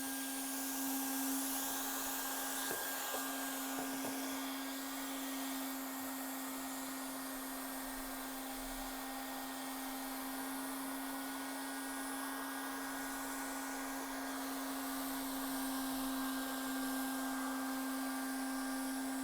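Bosite Plan self-propelled hot-air PVC welder running steadily as it welds thick pool foil at 440 °C: its heater blower gives an even hiss over a steady hum.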